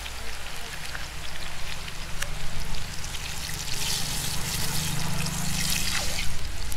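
Besan shev frying in hot oil in a large iron kadhai: a steady sizzle.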